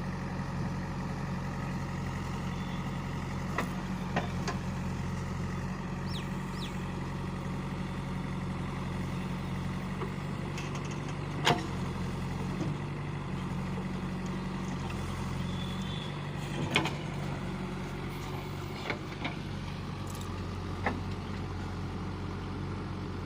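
Heavy diesel machinery engine running steadily at low revs, with a few sharp knocks, the loudest about halfway through and another about two-thirds through.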